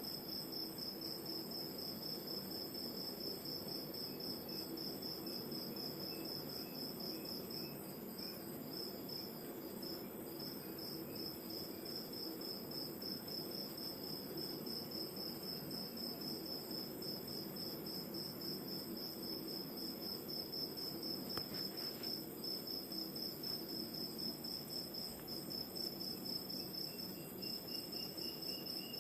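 Crickets chirping in a steady, evenly pulsing high trill over a low, even wash of distant ocean surf. Near the end a faint second high call joins in.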